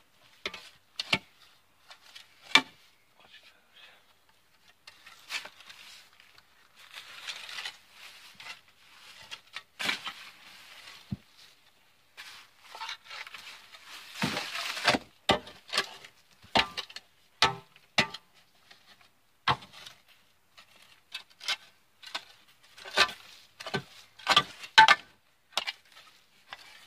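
Shovel digging in dirt: sharp strikes and scrapes of the blade in soil at irregular intervals, with a few longer scraping sweeps.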